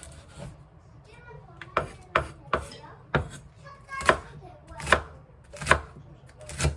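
Knife chopping on a cutting board: about eight separate, sharp strokes at an uneven, unhurried pace.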